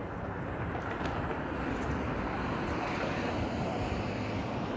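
Steady city street traffic noise, mostly low-pitched, with no single event standing out.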